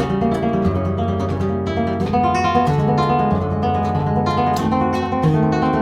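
Flamenco guitar played fingerstyle: a continuous arpeggio exercise, the fingers plucking the strings in quick succession over bass notes that change every second or so.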